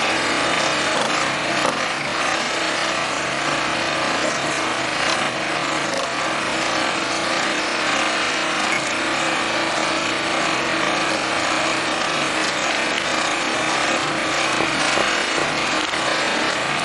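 Small towable backhoe excavator running, a steady rasping mechanical noise at an even level.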